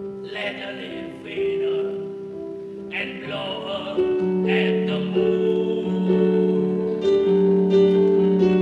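Song: a voice singing long held notes over instrumental accompaniment, with plucked notes joining about seven seconds in.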